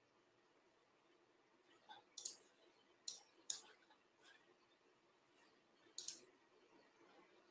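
About five short, sharp computer mouse clicks spaced irregularly, with near silence between them.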